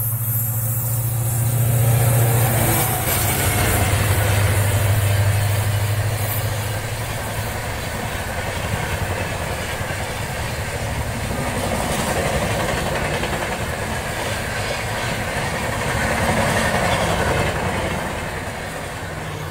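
WDP4 diesel-electric locomotive passing close by: its EMD two-stroke V16 engine gives a steady deep hum that is strongest over the first several seconds. Passenger coaches follow with a steady rush of wheel and rail noise, which tapers off near the end.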